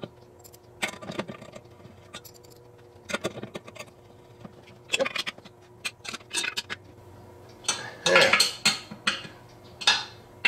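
Allen wrench clinking and scraping against the metal hub of an Eley hose reel as the screws joining its two halves are driven in. The sound comes in short bursts of metal clatter every second or two.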